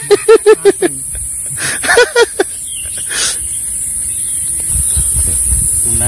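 A man laughing, a quick run of about seven pitched 'ha' pulses in the first second and a shorter laugh about two seconds in, over a steady high-pitched hiss.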